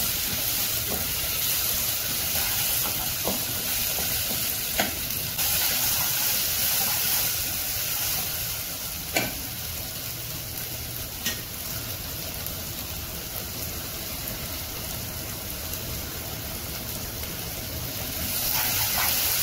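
Chopped onions, curry leaves and ginger-garlic paste sizzling in hot oil in a non-stick pan as they are sautéed. A steady frying hiss is broken by the scrape of a wooden spatula stirring them, with a few sharp knocks of the spatula against the pan.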